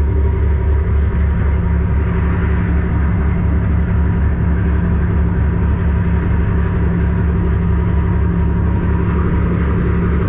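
Steady deep drone of an ocean-going tugboat's diesel machinery, a low hum with a few fixed tones above it and no change in speed.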